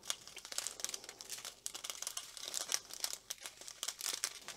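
Thin clear plastic bags of diamond painting drills crinkling as they are handled and shifted in the hands, with irregular light crackles.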